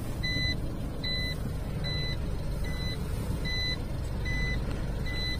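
Car's reverse warning beeper sounding a short, high, single-pitched beep about once every 0.8 seconds, seven times in all, as the car backs up, over the low rumble of the car itself.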